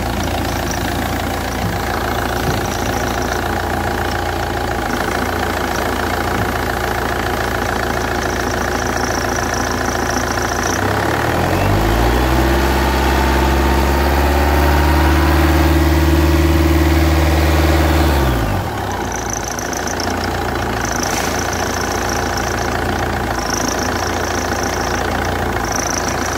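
Car engine running with its alternator belt drive turning, the belt tensioner beginning to fail. About eleven seconds in the engine is revved up, held higher for several seconds, then drops back to idle. A faint high whine comes and goes throughout.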